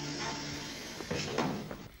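Background music dies away, then a door swings and thuds, loudest about one and a half seconds in.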